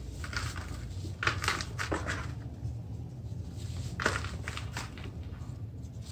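Pressed red sand cubes crushed and crumbled by hand in a plastic basin: a handful of short gritty crunches, the loudest a little over a second in and about four seconds in, over a steady low hum.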